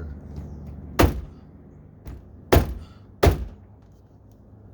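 Three hard thunks as a replacement speaker is forced against its mount in a 2002 Chevy Avalanche's front door, the second and third close together; the speaker is not seating, as it seems a little too thick for the opening.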